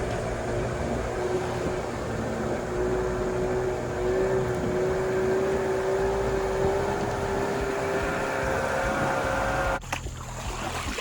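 Small boat engine running at a steady speed, a constant drone with a held hum. It cuts off suddenly about a second before the end.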